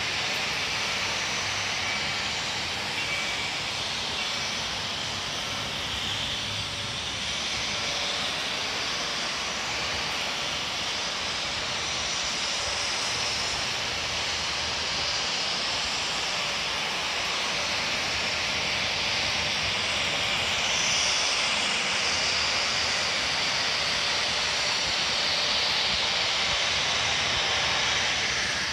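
Reading Blue Mountain & Northern 425, a 4-6-2 steam locomotive, working hard as it pulls a train away, heard as a distant steady roar of exhaust and steam that grows louder toward the end.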